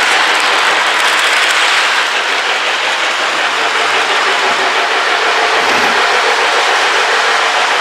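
Lionel toy train running on its track close to the microphone: a steady rolling noise of wheels on the rails and the motor.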